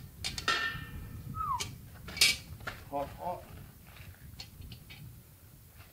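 Cast iron camp oven handled by its wire bail handle as it is lifted and tipped over: metal clanks and scrapes with a short ringing clang near the start, a brief squeal, and a sharp knock a little after two seconds in.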